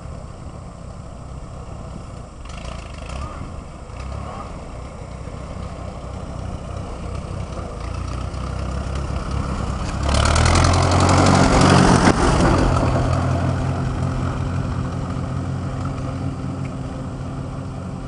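Farm tractor engine running as the tractor drives past, growing steadily louder to a peak about ten to thirteen seconds in, then fading as it moves away.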